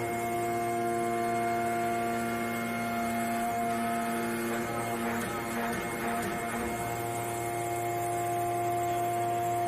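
Hydraulic forging press's power unit running with a steady multi-tone hum and whine. About halfway through, the tones waver and shift for a couple of seconds before settling back to the steady hum.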